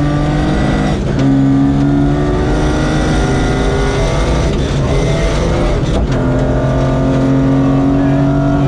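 Rally car engine heard from inside the cockpit, pulling hard through the gears on a gravel stage. The pitch climbs, drops at a gear change about a second in and climbs again. The note breaks up around the middle, then holds steady and high near the end.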